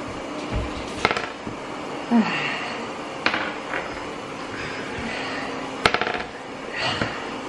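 A board-game die and wooden playing pieces knocking on a wooden tabletop: three sharp clicks a couple of seconds apart, the loudest about six seconds in.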